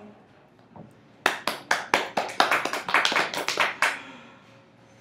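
A short round of hand clapping from a small group, starting about a second in and stopping about a second before the end.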